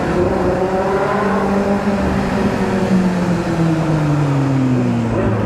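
Kawasaki Z750's inline-four engine heard from the rider's seat on the move. Its revs hold for the first couple of seconds, then wind down steadily as the bike slows, over steady wind and road noise.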